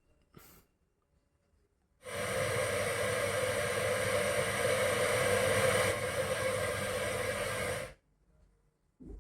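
A steady rushing hiss, played through a MarQ 4.1-channel Bluetooth home theatre's speakers. It starts abruptly about two seconds in and cuts off sharply about six seconds later.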